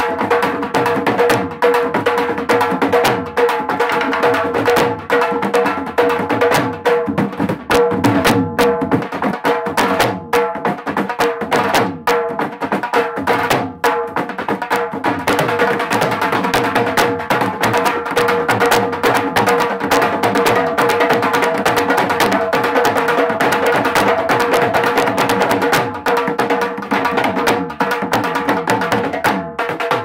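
Several dhol drums played together in a fast, dense, continuous rhythm, with a steady hum-like tone underneath.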